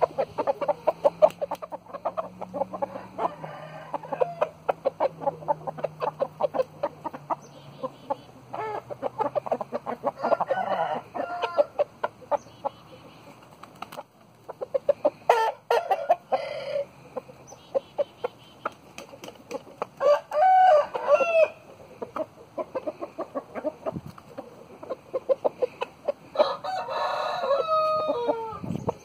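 Young roosters clucking in quick runs of short notes, with a longer crow about ten seconds in, another about twenty seconds in, and a third near the end.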